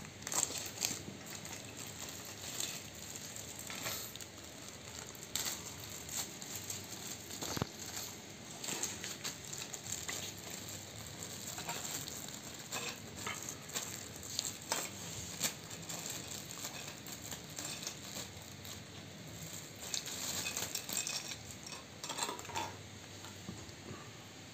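Clear plastic packaging crinkling and rustling as hands handle and open it, with irregular light clicks and taps of small plastic parts.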